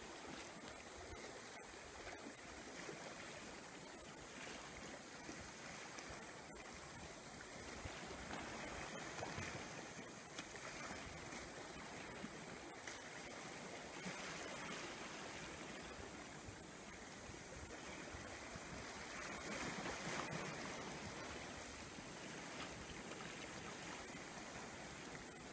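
Sea waves washing against a breakwater: a steady hiss of water that swells and eases gently, louder about a third of the way in and again near three-quarters through.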